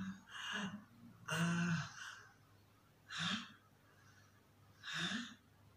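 A man's acted gasps and groans of pain: five short, breathy vocal bursts spread over several seconds, some rising in pitch.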